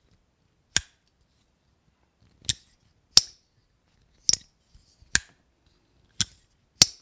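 Jack Wolf Knives Javelina slipjoint pocketknife's blade snapping open and shut against its backspring, seven crisp snaps spaced about a second apart.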